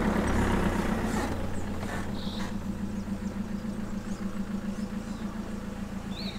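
Fiat Ducato camper van's engine running at low speed as the van is manoeuvred slowly across grass, the steady hum fading as the van moves away.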